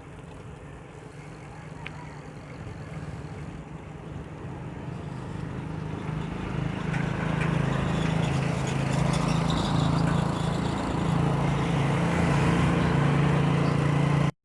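A motor vehicle's engine humming, growing steadily louder over the first several seconds as it comes near, then holding loud and steady over road and wind noise.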